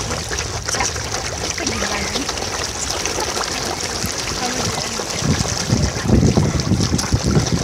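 Water churning and splashing as a dense crowd of carp thrashes and gulps at the surface, a continuous wet sloshing that grows louder and choppier over the last two or three seconds.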